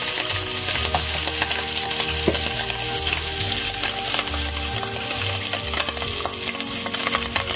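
Ground meat frying in a skillet with a steady sizzle, and a few light clicks over it.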